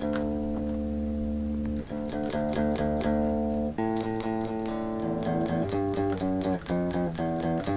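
Clean electric guitar, single strings plucked and left to ring while it is tuned by ear against a tuner: two long ringing notes, then shorter plucks of changing pitch, two or three a second. The guitar has been knocked out of tune by a fall.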